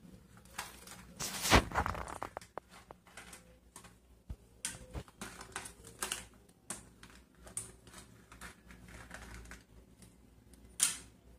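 Small plastic toy dishes, cups and a spoon clicking and clattering irregularly as they are handled, with a louder knock about a second and a half in and another near the end.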